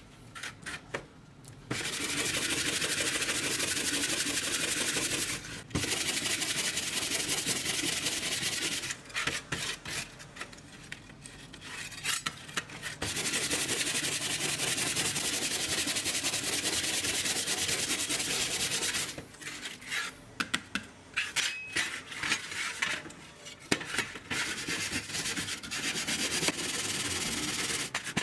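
Abrasive sanding or rubbing on a part of a circular saw during its restoration, in long steady stretches of a few seconds each, broken by pauses with small clicks and knocks.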